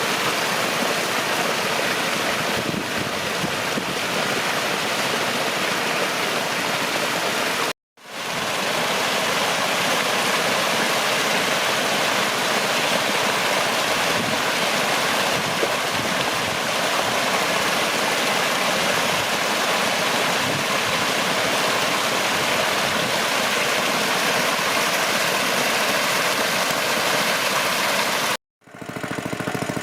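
Water rushing steadily, broken by two short silent gaps, one about eight seconds in and one near the end.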